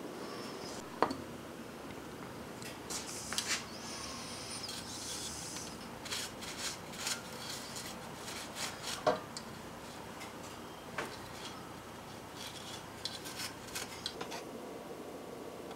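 Cloth rag rubbing over a wooden bar clamp in short scratchy strokes, with a few sharp clicks in between.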